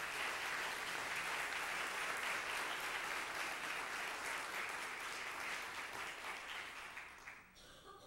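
Church congregation applauding, dying away about seven and a half seconds in.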